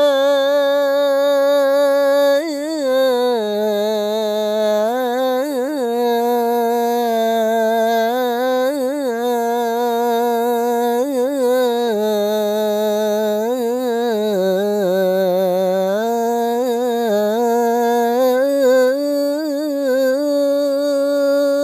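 A muezzin's voice singing the adhan in maqam Jiharkah, holding one long melismatic vowel of "hayya 'ala as-salah" without a break, its pitch wavering through ornamented turns and trills, dipping in the middle and settling on a steady note near the end.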